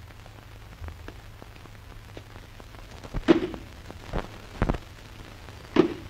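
Car doors opening and being slammed shut, about four short knocks spread over a few seconds, over the steady hiss of an old film soundtrack.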